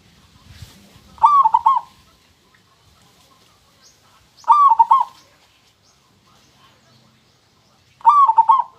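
Zebra dove (perkutut) singing: three short cooing phrases about three and a half seconds apart, each a quick run of clear, ringing notes.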